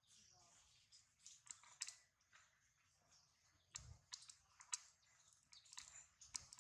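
Faint, irregular clicks and crackles, with a soft low thud about four seconds in.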